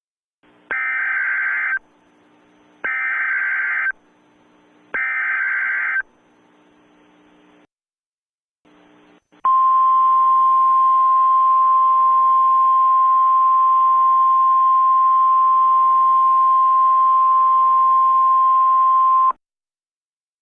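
Emergency Alert System SAME header: three short bursts of screechy data tones, about a second each, with faint radio hiss between them. After a brief pause comes the NOAA Weather Radio 1050 Hz warning alert tone, one steady tone held for about ten seconds that cuts off abruptly, the signal that a warning message (here a tornado warning) follows.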